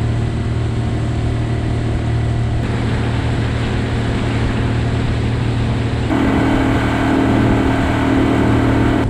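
Boat's outboard motor running steadily under way across the water, a loud, even drone. About six seconds in it gets a little louder and a higher droning tone joins in.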